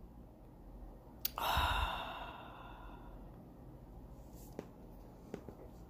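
A person's long, exasperated sigh blown out close to the microphone, starting with a short mouth click about a second and a half in and fading away over about two seconds, followed by a few faint ticks.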